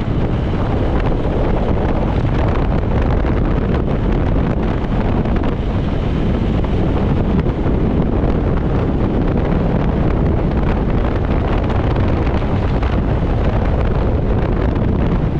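Steady wind buffeting a microphone mounted on the outside of a moving Mahindra Bolero, over the vehicle's road and engine noise as it drives along.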